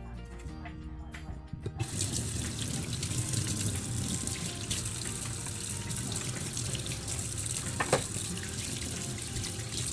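Kitchen tap turned on about two seconds in, water running steadily into a stainless steel sink and splashing over potatoes being rinsed under it. A single sharp knock near the end.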